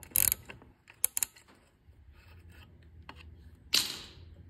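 A hand ratchet clicks as it backs off the bolt of an input shaft end-play tool, releasing the shaft after its end play is measured. A few lighter metal clicks follow, then a brief metallic rattle near the end as the bolt is freed.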